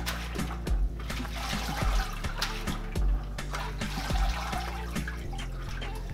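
Background music with a steady beat, over water sloshing and splashing in a bucket as aquarium filter media is rinsed by hand.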